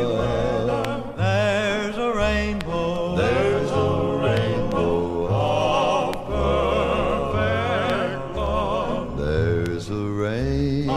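Southern gospel male quartet singing in harmony, with vibrato on the held notes, over a low bass line and instrumental accompaniment.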